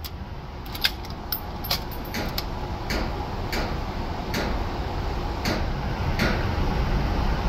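Indoor shooting range ambience between rifle shots: a steady low rumble with a series of faint sharp clicks and cracks, bunched together in the first couple of seconds, then about one a second.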